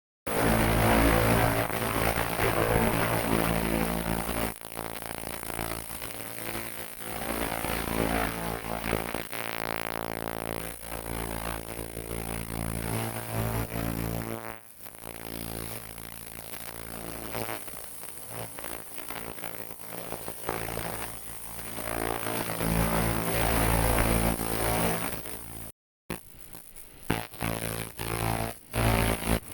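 Fiber laser cleaning machine buzzing steadily with a crackling hiss as its pulsed beam strips oil off metal. The sound cuts off abruptly near the end, then returns in short, uneven spurts.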